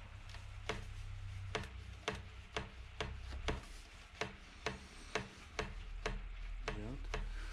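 Sharp plastic-and-metal clicks, one or two a second at uneven intervals, from the e-mountain bike's battery and holder in the down-tube battery compartment being worked by hand. This is the rattle the owner is hunting, which he suspects comes from the battery compartment.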